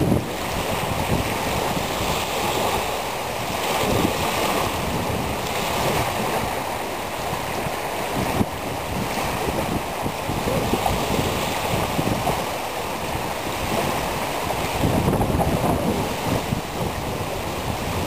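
Wind on the Danube buffeting the microphone in gusts, over choppy river water with small waves splashing in along the shore.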